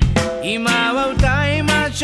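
Background music: a Japanese song with a voice singing over drums and bass, holding a wavering note in the second half.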